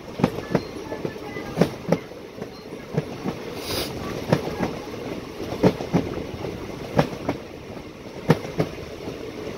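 Train wheels clicking over rail joints in evenly spaced pairs (clickety-clack), recurring about every second and a half, over the steady running noise of the moving train, heard from on board. A short hiss comes about four seconds in.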